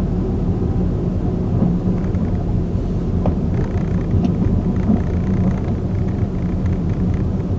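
Car engine and tyre noise heard inside the cabin while driving in city traffic: a steady low rumble.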